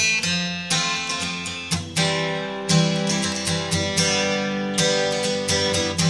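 Background music played on acoustic guitar: a steady run of plucked notes.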